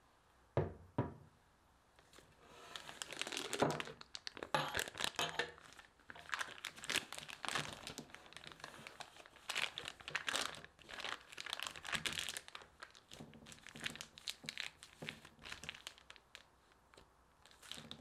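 Two soft knocks about half a second apart near the start. Then a thin plastic piping bag, filled with whipped cream-cheese filling, crinkles and rustles steadily as it is handled.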